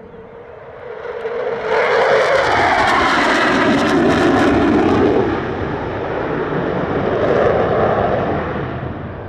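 Su-30MKM fighter's twin afterburning turbofans during a display pass. The jet noise builds about a second in and is loudest for a few seconds, with a crackling edge and a pitch that drops as the jet passes. It then eases, swells once more, and fades near the end.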